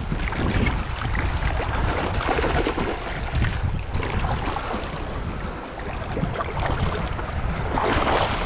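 Wind buffeting the microphone over sea water washing on a shallow reef, with splashing from a hooked fish thrashing at the surface; the splashing grows louder near the end as the fish is drawn into the shallows.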